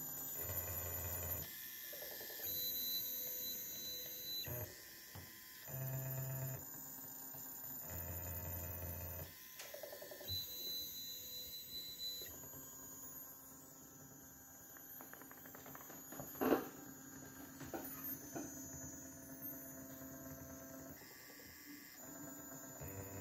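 Stepper motors of a homemade egg-painting machine whining in short stretches as they move, each move at its own pitch, starting and stopping abruptly. A single sharp click about sixteen seconds in.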